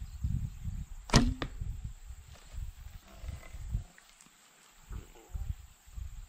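A horse bow (biocomposite recurve) is shot once about a second in: a sharp snap as the string is released, with a short ringing twang from the string. Low rumbling gusts on the microphone come and go around it.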